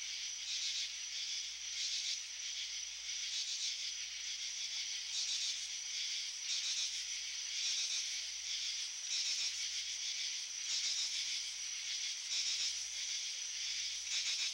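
A steady chorus of night insects chirping, a high shrill buzz that pulses in a regular rhythm, as camping-at-night ambience.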